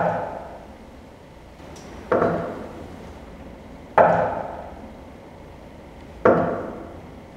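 Four single knocks of a fist on a door, about two seconds apart, each echoing and dying away over about a second.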